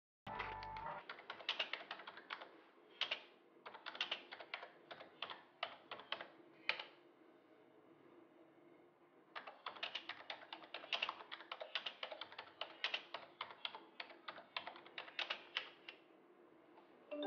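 Typing on a computer keyboard: quick runs of key clicks that stop for about two seconds midway, then start again. A faint steady hum lies underneath.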